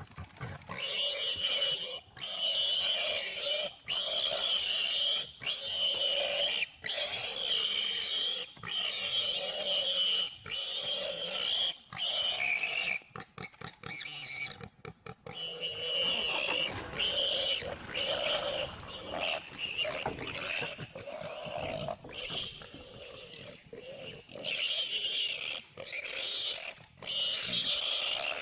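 Warthog squealing over and over, each squeal about one and a half to two seconds long with short breaks between, turning into a quick run of short squeals about halfway through.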